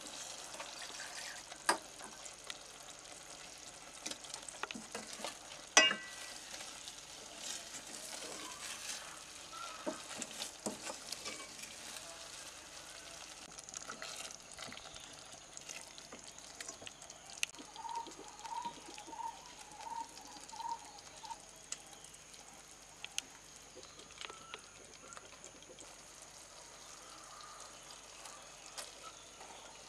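A metal spoon stirs and scrapes thick chicken curry in a steel pot over a low sizzle, clinking against the pot's sides. The loudest clink comes about six seconds in and rings briefly.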